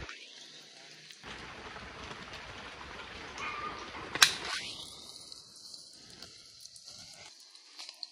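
Pruning shears snipping through a grapefruit stem once, a sharp click about four seconds in, over a steady rustle of leaves and branches being handled.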